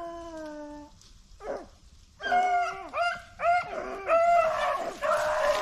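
Rabbit hounds baying while running a rabbit: one long falling bay at the start, then after a short lull a quick run of bays from the pack, overlapping near the end.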